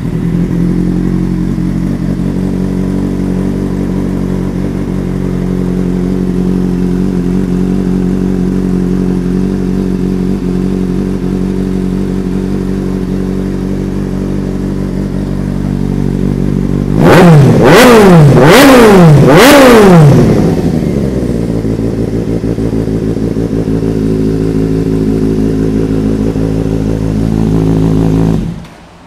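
Kawasaki Z800's inline-four engine idling through a loud aftermarket carbon-fibre slip-on exhaust. About seventeen seconds in, a few quick throttle blips make the loudest part, then the engine settles back to a steady idle until the sound cuts off near the end.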